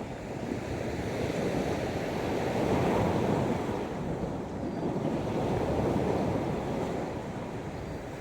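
Sea waves breaking and washing in on the shore, swelling and easing twice, with wind on the microphone.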